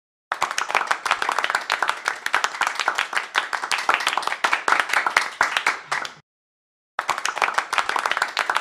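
Applause: a dense, irregular stream of claps that cuts off abruptly about six seconds in and comes back after nearly a second of silence.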